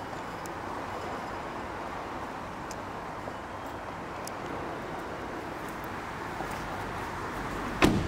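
A Kia Rio's front car door shut once, a single sharp knock near the end, over a steady background hum.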